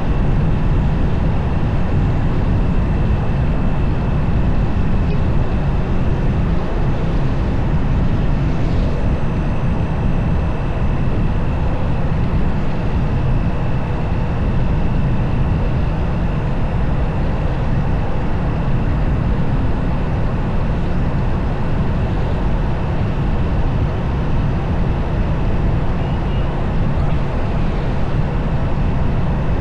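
Motorcycle riding at a steady pace: wind rushing over the microphone with engine and road noise underneath, and a thin steady high whine.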